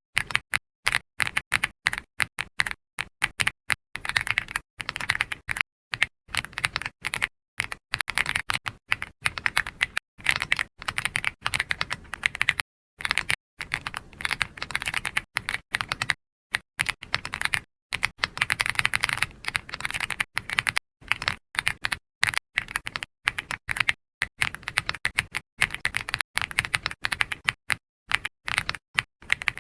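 Typing on a computer keyboard: fast runs of keystroke clicks broken by brief pauses, the longest about thirteen seconds in.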